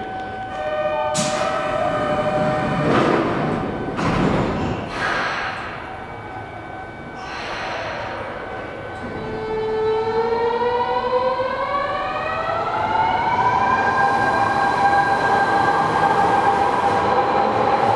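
Kyoto Municipal Subway 50 series train departing. A chime dies away about a second in, and several loud hissing swells follow over the next several seconds as the train and platform screen doors close. From about nine seconds in, the traction motors' inverter whine rises in pitch in several tones at once and then levels off as the train accelerates away.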